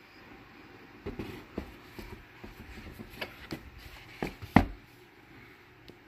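Handling noise as the Akai MPC Live is turned in the hands: scattered knocks and rubs against its casing. The loudest is a sharp knock about four and a half seconds in.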